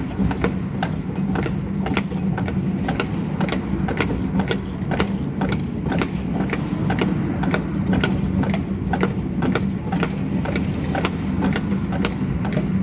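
Horse-drawn tram car rolling along its rails behind a walking horse: a steady rumble from the steel wheels, with a constant irregular clatter of clicks and knocks from the car and the hooves.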